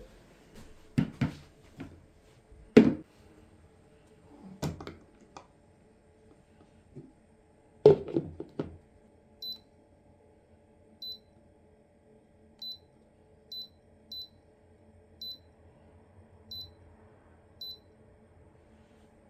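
A few knocks and clunks of things being handled in the first nine seconds, then an electric baby bottle warmer's touch panel giving a short high beep with each button press, about eight beeps at uneven intervals as its warming mode and temperature are set.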